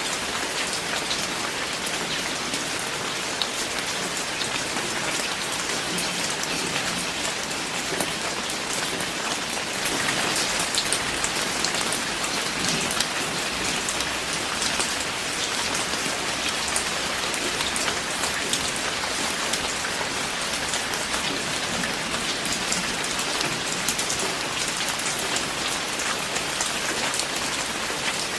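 Steady heavy rain falling, an even hiss with many individual drops pattering on a surface. It grows a little louder about ten seconds in.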